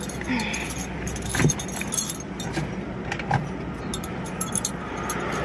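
Light metallic jingling and clicking with rustling, from a person moving about in a car seat while changing clothes, with two soft thumps, one about a second and a half in and another past three seconds in.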